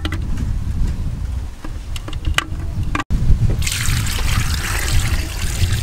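Coconut water poured from a cut green coconut into a clay pot full of eggs, a steady splashing trickle starting about halfway through. Before it, a few light clicks of eggs knocking together as they are set in the pot.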